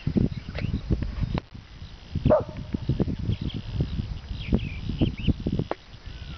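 A dog gives one short whine a little over two seconds in, over irregular low thumps and faint bird chirps.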